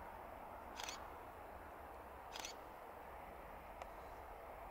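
Faint, steady noise of the Airbus A321neo's CFM LEAP-1A jet engines at takeoff power. Over it come two short rattling bursts of camera shutter clicks, about a second and two and a half seconds in, and a single click near the end.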